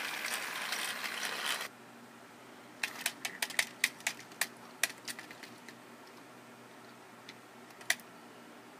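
Plastic toy train set. A hissing rush lasts until under two seconds in, then a run of sharp plastic clicks and clatters follows for about three seconds, with two more single clicks near the end.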